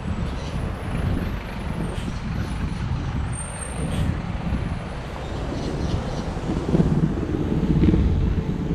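Street traffic: a heavy road vehicle's engine running close by, its low rumble swelling louder about seven to eight seconds in.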